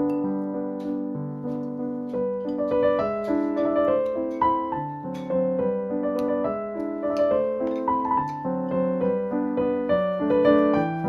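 Background piano music: a gentle melody over held chords, notes changing about every half second.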